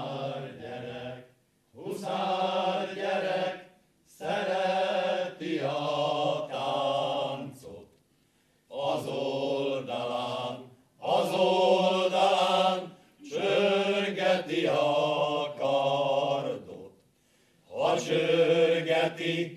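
Male choir singing a Hungarian verbunk (recruiting) folk song unaccompanied, in short phrases with brief pauses between them.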